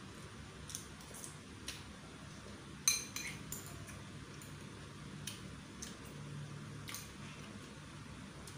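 A metal spoon clinking and scraping against a white bowl as the last of the noodles and broth are spooned up: scattered light clicks, with one sharper ringing clink about three seconds in.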